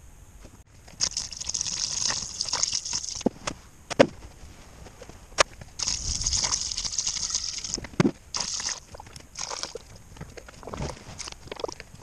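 Fluid pouring from a plastic jug into a funnel in several spells of one to two seconds, with a few sharp knocks between pours. The pour about halfway through is glycol coolant going into the cooling system.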